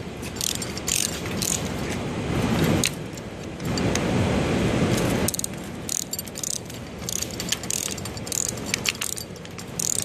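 Hand-held tubing cutter being turned around a copper refrigerant line, its cutting wheel giving short, high metallic scrapes and clicks with each turn. A louder stretch of low rushing noise comes about four to five seconds in.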